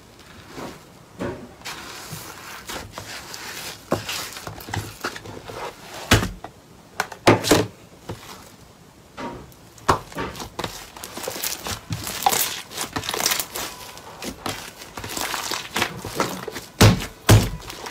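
Hands pressing, poking and kneading slime: a run of irregular sticky clicks, squishes and pops, the loudest pops about six to seven seconds in and again near the end.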